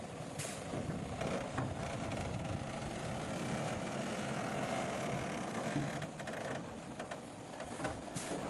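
Heavy earthmoving machinery running steadily, with a couple of brief knocks: about half a second in and near the end.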